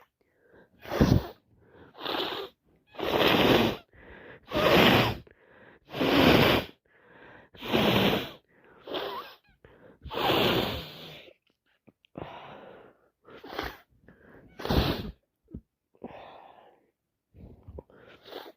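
A woman with a head cold sneezing and sniffing over and over: a dozen or so loud, breathy bursts, about one a second.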